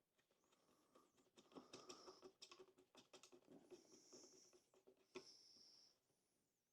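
Faint quick clicking and light scratching of small screws being turned into a chainsaw's plastic case, backed off until the thread drops into the hole and then started in, a way to avoid cross-threading.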